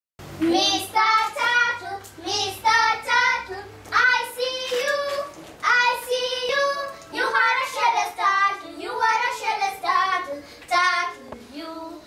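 Children singing a song in short, repeated phrases, their voices alone with no instruments.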